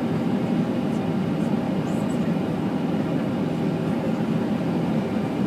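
Steady cabin noise of a Boeing airliner descending on approach: a continuous low rush of engine and airflow noise heard from inside the passenger cabin.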